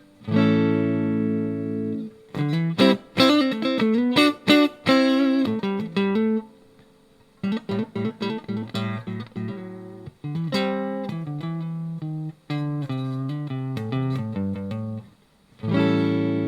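Electric guitar played clean through a budget practice amp's clean channel: a held chord, a quick run of single notes, a short pause about six and a half seconds in, then more picked notes and chords ending on another held chord.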